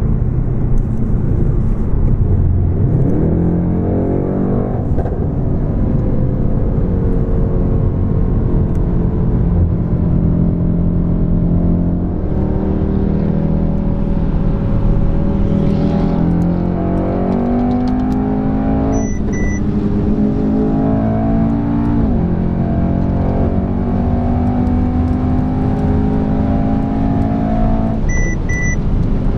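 Mercedes-AMG E63 S twin-turbo V8 heard from inside the cabin at full throttle at autobahn speed. The engine note climbs through each gear and drops at the upshifts several times. A short electronic double beep sounds twice, about two-thirds of the way in and near the end.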